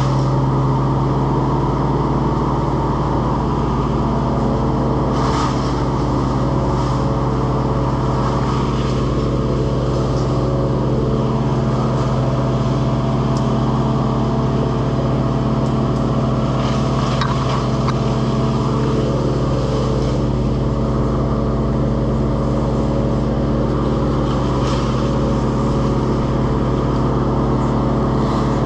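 An engine running steadily at one unchanging speed, with a few faint knocks or rustles over it.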